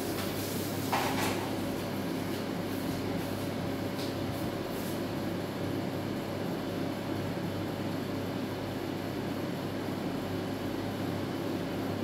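Samsung microwave oven running while it heats a bowl of water: a steady hum. A short knock comes about a second in and a faint click near four seconds.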